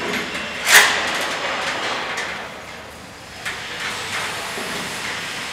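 Steel crane chains and hooks clanking against a steel frame, one sharp clank a little under a second in and lighter knocks later, over the steady noise of a factory hall.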